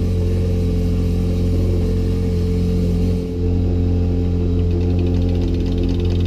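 Boat outboard motor running steadily at trolling speed, a loud even hum. Near the end a faint, fast, even ticking comes in over it.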